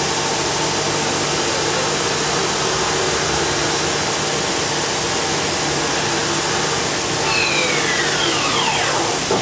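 Hitachi Seiki HG630 horizontal machining center running with a steady hum and hiss while its table indexes and its spindle head moves. Near the end a whine falls steadily in pitch over about two seconds.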